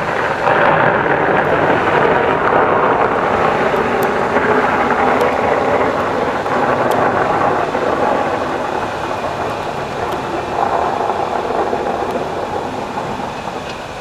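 Fireworks barrage: a sudden dense rumble of many overlapping bursts and crackling that starts all at once, with a few sharp cracks, swells again about ten seconds in, and eases off near the end.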